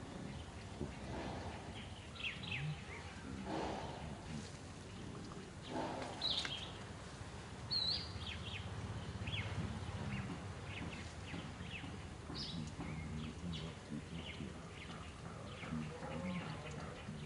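Outdoor background noise with scattered short, high chirps and squeaks from animals, and a few brief lower calls in the first six seconds.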